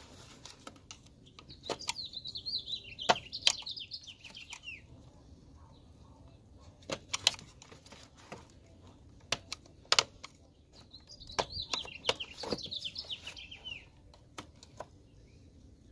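A bird sings twice, each time a phrase of quick chirps lasting about three seconds that falls in pitch at the end: once about a second and a half in, and again after about eleven seconds. Sharp clicks and knocks of hands and tools working on hard plastic parts are scattered throughout and are the loudest sounds.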